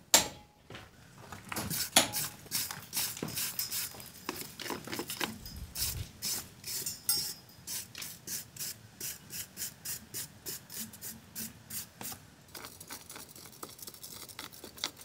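Wire brush scrubbing crumbly mortar out of the joints of a stone wall, in quick back-and-forth scraping strokes about three a second, after a sharp knock right at the start.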